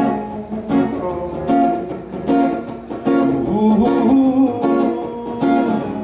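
Live band music: strummed acoustic guitar in a steady rhythm, with a singer's wordless vocal line over it.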